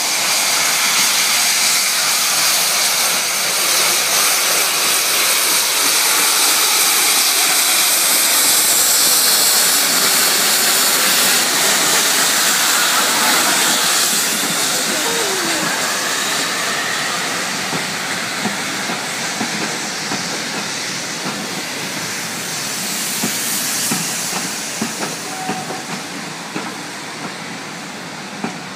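Steam locomotive hissing loudly as it pulls a train away and passes close by. The hiss fades after about halfway as the coaches roll past, and wheels click over the rail joints near the end.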